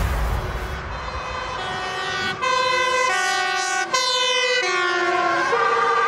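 Several emergency-vehicle two-tone sirens sounding at once, their tones stepping up and down about every three-quarters of a second. A warbling siren tone joins near the end.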